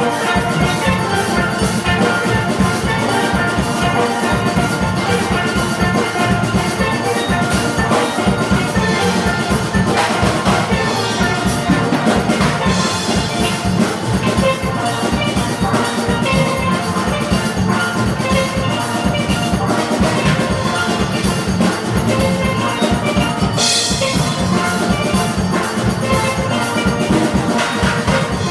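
Steel band playing: many steel pans ring out a melody and chords over drums keeping a steady beat.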